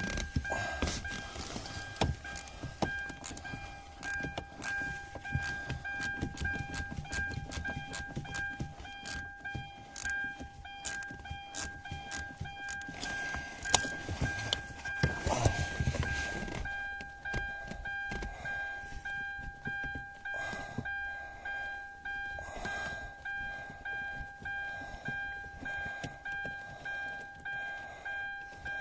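Ratchet wrench clicking in repeated strokes as it undoes the bolt holding the steering shaft to the steering rack. A steady high-pitched tone sounds throughout.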